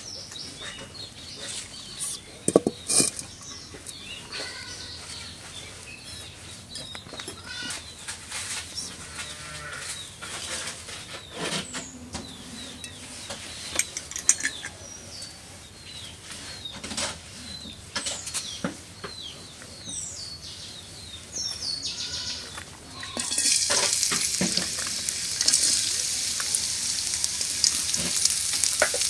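A few sharp knocks and scattered clatter, with farm-animal calls in the background. About 23 seconds in, sliced onions go into hot oil in a metal karai and sizzle loudly and steadily.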